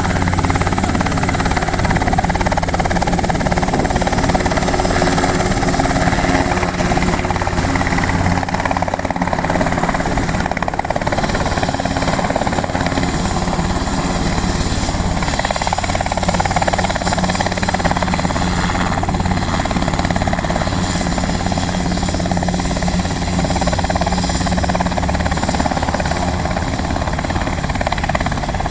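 Helicopter running steadily, its rotor and engine a loud even drone with no break.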